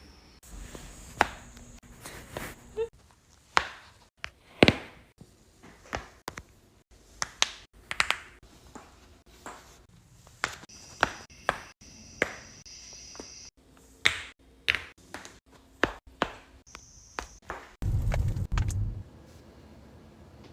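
A long run of sharp joint cracks and pops, about twenty of them at irregular spacing. Near the end a low rumble lasts about a second.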